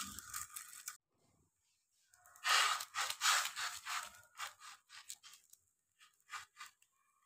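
Fingers pressing and patting oily laccha paratha dough flat on an iron tava, making a run of soft, irregular squishing pats through the middle, with a faint fading sizzle at the start.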